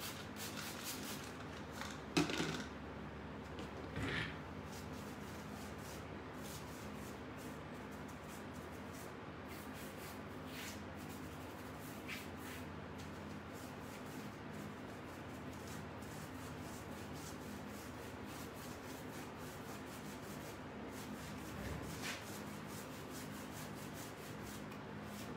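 Paintbrush scrubbing and dabbing paint onto a cabinet surface textured with crumpled paper towels glued on with Mod Podge: a continuous scratchy rubbing made of many quick irregular strokes. Two louder short bursts come about two and four seconds in.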